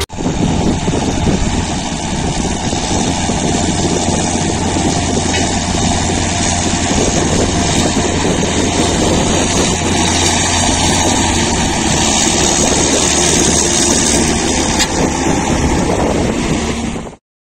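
John Deere 6630 tractor's diesel engine running steadily under load while it pulls a 4 m disc harrow through the field. The sound cuts off suddenly near the end.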